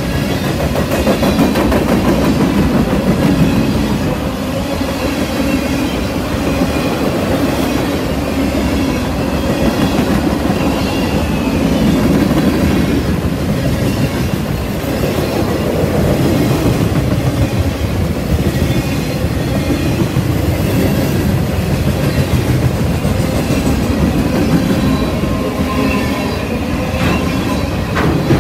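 Loaded freight cars of a fast Norfolk Southern freight train rolling past: a steady, loud rumble of steel wheels on rail with rapid clickety-clack over the joints.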